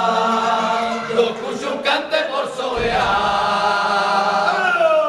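A group of men singing together unaccompanied, holding long drawn-out notes. The singing breaks off briefly about two seconds in, then resumes, and the voices glide down near the end.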